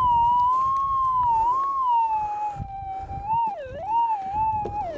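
Minelab GPZ 7000 gold detector's audio tone: one continuous electronic whistle that wavers and slowly sinks in pitch, with a couple of sharp dips and rebounds in the second half, like an arcade game.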